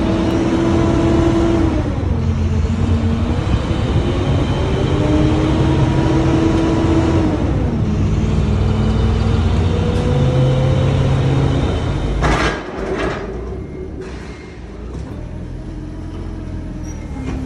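Diesel box truck driving at highway speed, heard from inside the cab: engine and road noise, the engine note climbing and falling back twice. About twelve seconds in, a few sharp knocks, then a much quieter stretch.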